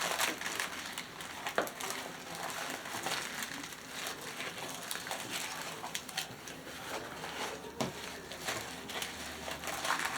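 Small plastic bags crinkling and rustling as they are handled, with scattered light ticks.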